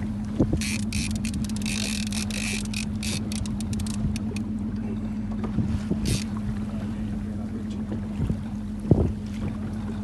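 A small boat's motor running with a steady low hum, while choppy water splashes against the inflatable hull in bursts of hissing spray, with a few knocks against the boat.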